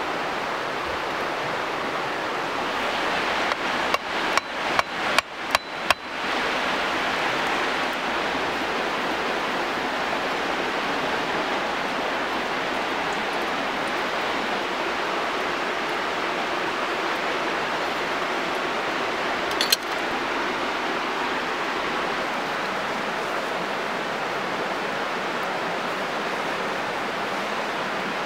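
A hatchet knocking a wooden stake into the ground: a quick run of about seven sharp knocks, roughly three a second, a few seconds in. A steady rushing noise lies under it, and there is a single short clink about two-thirds of the way through.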